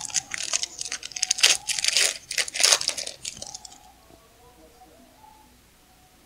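Foil wrapper of a 2015 Topps football card pack crinkling and crackling loudly as it is peeled open by hand. The crackling stops about three and a half seconds in, once the cards are out.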